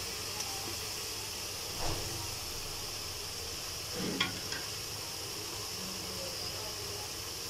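Steady high sizzling hiss of ginger-garlic and green chili paste frying in a pan, with a soft knock about two seconds in and a sharper one about four seconds in.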